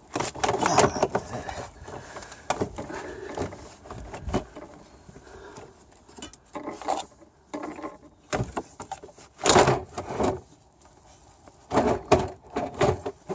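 Irregular clunks, scrapes and rattles of hands working on parts in a car's engine bay, such as the air box housing. The loudest bursts come about a second in and again near ten seconds in.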